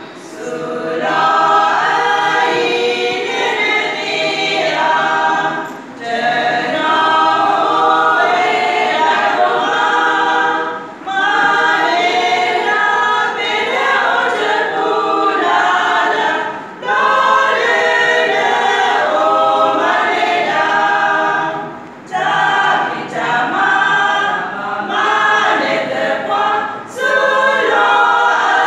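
Women's choir singing a gospel hymn a cappella, in several voices, with brief breaks between sung lines.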